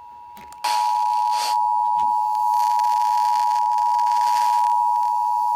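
Emergency Alert System attention signal: two steady tones sounding together, faint at first, then loud about half a second in and holding, with some hiss over it.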